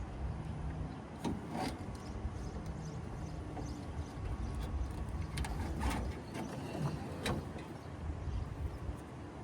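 A few sharp clicks and knocks of hands working at a car's wiring, over a low steady rumble.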